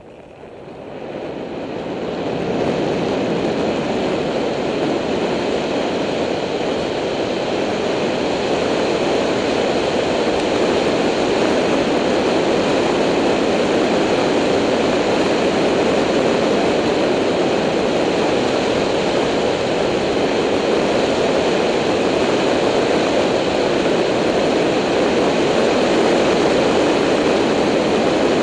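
Wind noise on the microphone of a camera riding on a moving bicycle. It rises over the first two seconds or so as the bike gathers speed, then holds steady and loud.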